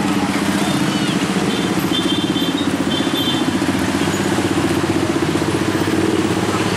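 Many motorcycle and scooter engines running at low speed in slow, crowded traffic, a steady drone with a fast engine pulse.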